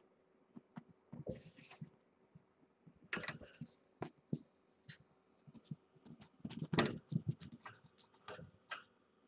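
Kittens' paws thumping and scratching as they wrestle, pounce and climb on a sisal-rope cat tree and towels: scattered soft thumps and scrapes, the loudest flurry about seven seconds in.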